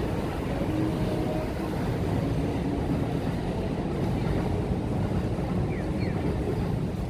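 Steady low rumble of vehicle noise, with a few faint short tones over it.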